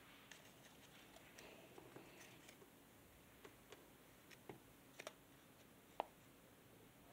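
Faint clicks and light rustling of a folded paper origami dinosaur being picked up and handled by fingers, the sharpest click about six seconds in.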